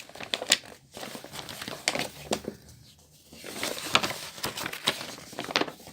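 Paper booklet being leafed through quickly: pages rustling, with a string of short, sharp page flicks.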